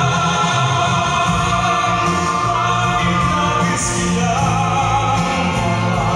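Music playing for the dance: a choir singing long held notes over a steady low accompaniment.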